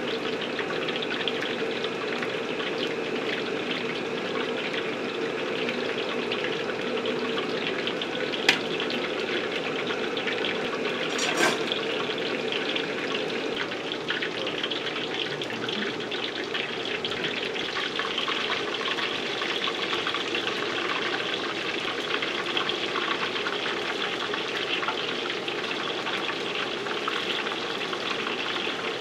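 Menbosha, shrimp-filled bread toast, deep-frying in hot oil: a steady crackling sizzle, with two sharp knocks about 8 and 11 seconds in.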